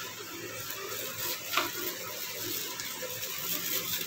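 Masala paste sizzling steadily in mustard oil in a steel kadhai as it is fried on a medium flame, with one short crackle about one and a half seconds in.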